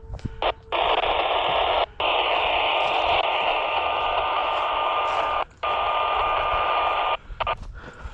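Handheld two-way radio hissing loud static with no voice in it, in three long stretches with two short breaks, cutting off about a second before the end.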